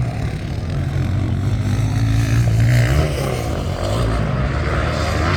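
Motocross dirt bike engines running on the track, their note rising and falling with the throttle a couple of seconds in.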